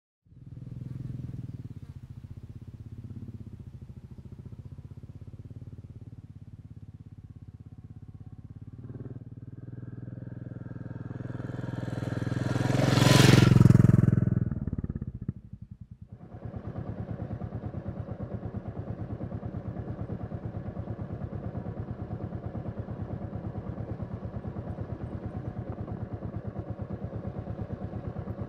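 Royal Enfield Classic 350 single-cylinder engine. The bike comes closer, swells to a loud close pass about halfway through, then runs steadily at an even pace, its firing pulses regular.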